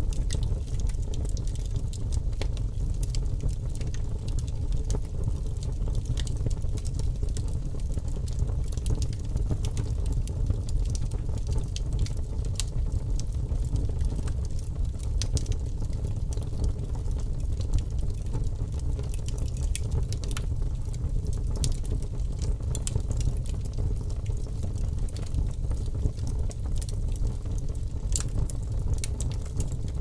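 Fire burning, with a steady low rushing noise and frequent sharp crackles and pops.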